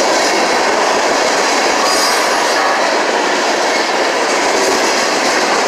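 Cars of a CSX mixed freight train rolling past at a grade crossing: the steady, loud noise of steel wheels running over the rails.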